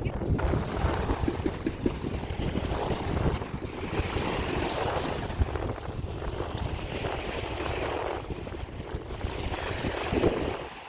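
Wind buffeting the microphone: a heavy, uneven low rumble with a rushing hiss over it.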